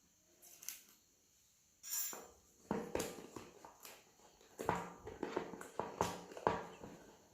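Cardboard phone box being opened by hand: the lid and inner packaging scrape and rustle, with several soft knocks, starting about two seconds in.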